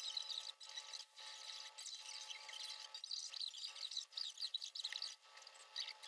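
Hands rubbing and scraping over laser-cut balsa kit sheets on a wooden workbench, a dry scratchy sound broken by short pauses.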